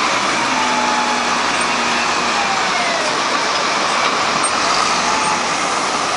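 Wheel loader's diesel engine running under load with a faint whine that rises and falls as it works its bucket in avalanche snow, over a steady rushing noise.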